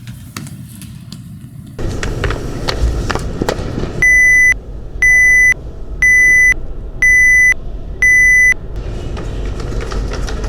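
Five loud electronic beeps, each about half a second long, one a second, starting about four seconds in: a smoke detector's beeping, dubbed in as a sound effect.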